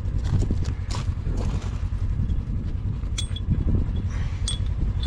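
Steel parts of a tractor weight mount being handled and turned over, with knocks and two short metallic clinks that ring briefly, about three and four and a half seconds in, over a steady low rumble.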